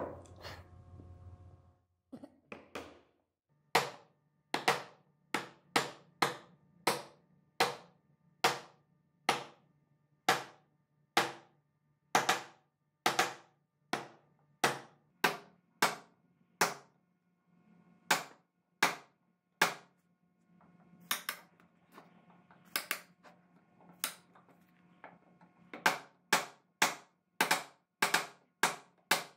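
Hammer strikes on a chisel held along a scribed line in a solid-wood board: sharp, separate taps about one a second, coming faster near the end, as the chisel chops in the layout lines of a hand-cut joint.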